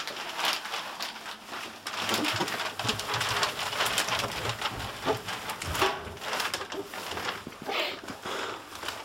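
Black plastic bin bag, worn over a person's head and body, rustling and crinkling as they walk down stairs, with irregular footstep thumps.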